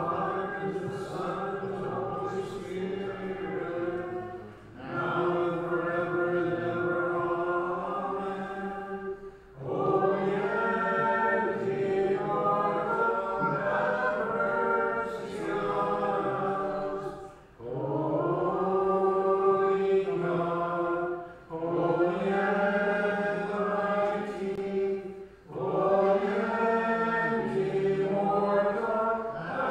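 Eastern-rite liturgical chant sung by unaccompanied voices in long phrases, with a short break for breath about every four to eight seconds.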